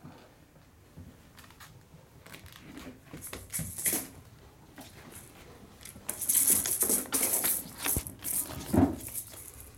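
Kittens' soft scattered clicks and scuffles on a pet mat, then from about six seconds in a loud, irregular crackling rustle as a long-haired Norwegian Forest Cat's fur brushes against the microphone.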